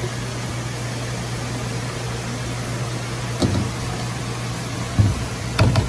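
Steady low mechanical hum of kitchen equipment, with a single knock about three and a half seconds in as the steel bowl and rubber spatula scrape ganache into a stainless steel pan. A quick run of light taps, about five a second, starts near the end.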